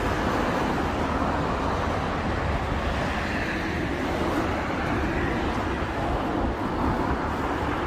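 Steady road traffic noise: cars passing on the adjacent road in an even rush with no distinct single event.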